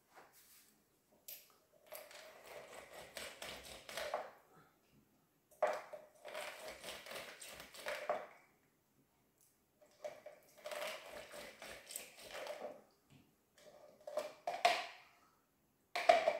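Lime halves being twisted and pressed on a plastic hand citrus reamer, a wet grinding and squelching of fruit against the ridged cone, in four separate bouts with short pauses between.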